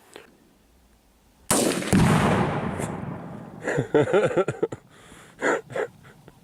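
An AR-15 rifle shot followed a split second later by the Tannerite charge inside the pumpkin detonating, a sharp boom that rolls off over about two seconds. Excited voices follow.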